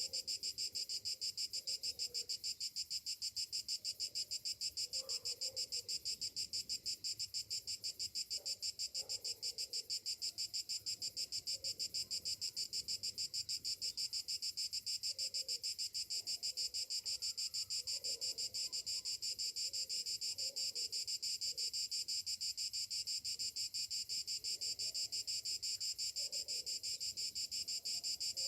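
Summer cicadas singing in a steady chorus, a rapid even pulsing that never lets up. Faint, scattered lower calls sound underneath.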